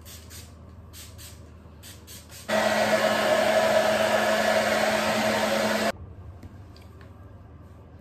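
Hand-held hair dryer blowing for about three and a half seconds, switching on and off abruptly, with a steady hum under the air noise.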